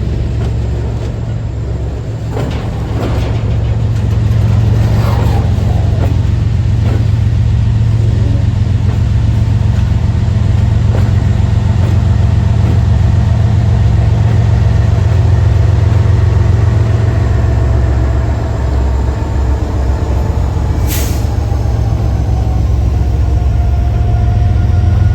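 Diesel freight locomotive (Norfolk Southern ES44AC) running under load while switching cars, with a steady heavy low engine drone. A short sharp hiss of air is heard late on.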